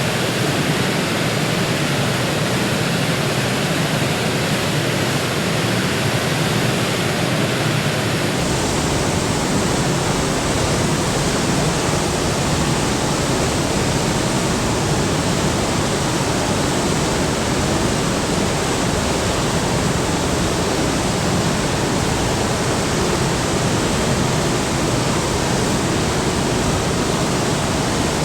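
Heavy waterfall: a steady, loud rush of falling water. About eight seconds in, the sound takes on a deeper low rumble.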